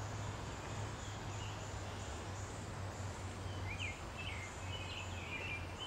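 Woodland ambience: a steady low hum and hiss, a faint high insect trill, and a few short bird chirps about four to five and a half seconds in.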